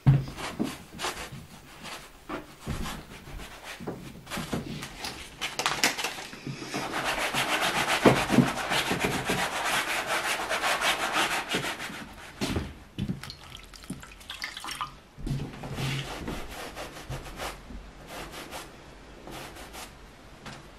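Paint being scrubbed and smeared onto a canvas with a brush and by hand, in many quick rubbing strokes. A longer, louder stretch of continuous scrubbing comes near the middle.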